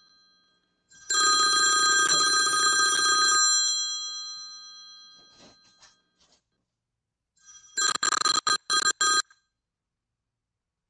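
iPhone ringing for an incoming call. A loud ring lasts about two seconds and fades away, then a second, shorter ring near the end breaks up in quick gaps.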